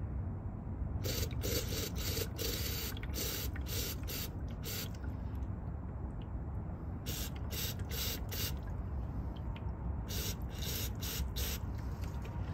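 Aerosol brake cleaner sprayed through a straw into a diesel NOx sensor in repeated short hissing bursts, in three runs, flushing carbon build-up out of the sensor. A steady low rumble runs underneath.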